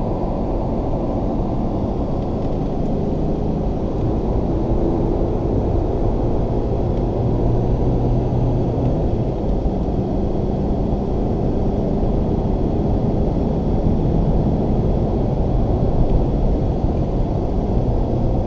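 Alfa Romeo car's engine and road noise heard from inside the cabin under acceleration: a steady drone with engine tones that shift in pitch, swelling slightly a few seconds in and again near the end.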